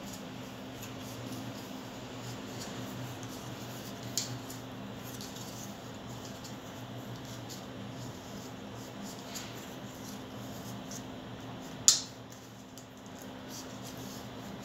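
Light clicking and handling of small metal fittings being turned by hand on a steel plate, over a steady low machine hum. A single sharp click about twelve seconds in is the loudest sound.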